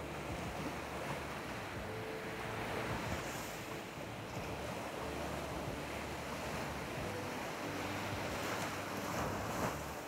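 Sea waves breaking and washing up a beach beside rocks: a continuous rush of surf that swells a little about three seconds in and again near the end.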